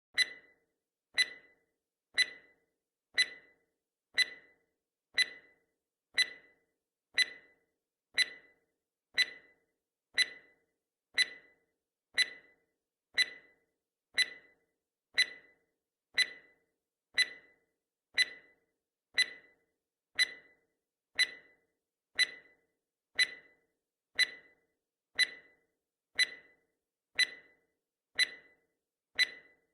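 Countdown timer's clock-tick sound effect: one short, sharp tick every second, steady and even.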